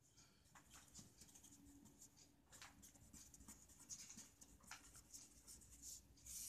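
Pen writing on paper: faint, irregular scratching strokes.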